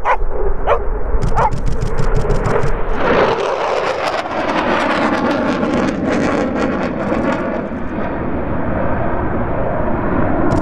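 A dog gives three short yelps. Then the jet noise of a low-flying F-15's twin turbofans swells into a loud, steady rush that sweeps past with a slowly wavering tone.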